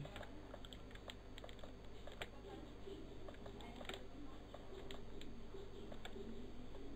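Faint, irregular clicking of a computer mouse and keyboard, over a low steady hum.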